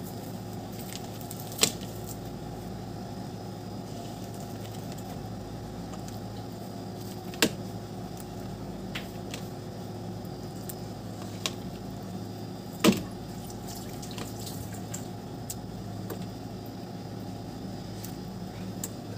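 Fish soup simmering in an open electric multicooker over a steady low hum, with a few sharp clicks, three of them loud and spread through the stretch.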